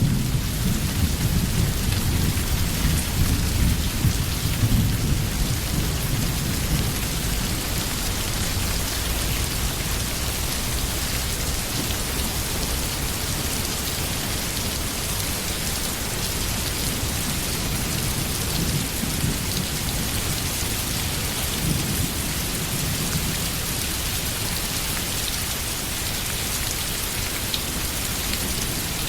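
Steady rain falling, with low rolling thunder rumbling underneath, heaviest in the first few seconds and swelling again about twenty seconds in.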